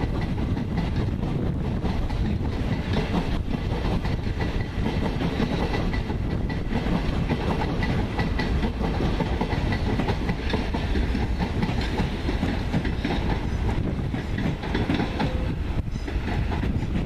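A long electric multiple-unit train running past: a steady rumble of wheels on rails, with a faint whine over it. Near the end a second electric train comes in.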